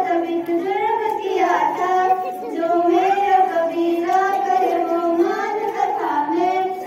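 A small group of schoolgirls singing together in a slow melody, holding long notes that rise and fall.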